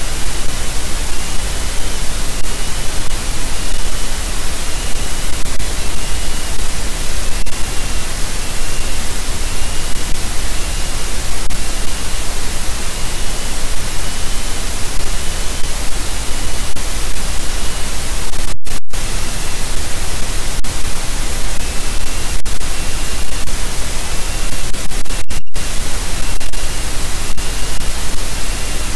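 Loud, steady hiss of static from the nest camera's microphone, broken twice by brief dropouts to silence in the second half. A faint series of short chirps, a little more than one a second, comes through the hiss in the first several seconds and again near the end.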